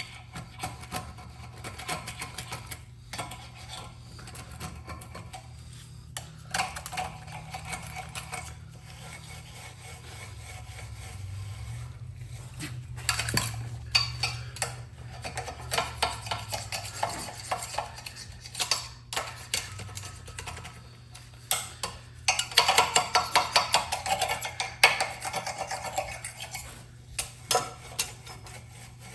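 Metal parts and tools clinking and scraping in irregular bursts as the sprayer is worked on by hand, busiest about halfway through and again near the end, over a steady low hum.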